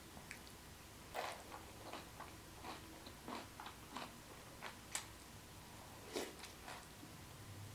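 Close-miked mouth chewing a large mouthful of food: irregular, faint wet smacks and clicks, a few a second, with a sharper click about five seconds in.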